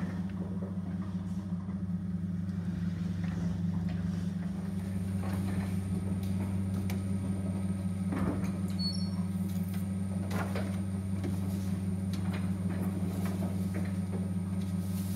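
Large cylinder printing press running steadily, a low mechanical hum with scattered clacks from its moving parts.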